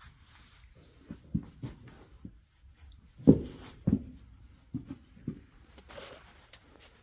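A series of about eight irregular dull thumps and knocks, the loudest about three seconds in, with a soft scuffing near the end.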